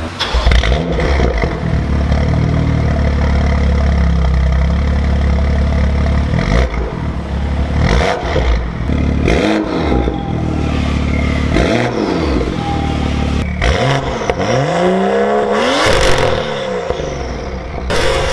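BMW M2's turbocharged inline-six running through a freshly fitted titanium Akrapovic Evolution exhaust. It idles steadily for several seconds, then is blipped a few times, the revs rising and falling, with a quicker run of blips near the end.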